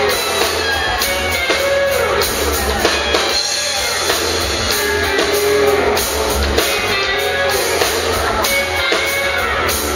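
Live country band playing: electric guitar, electric bass, drum kit and fiddle, with a steady drum beat.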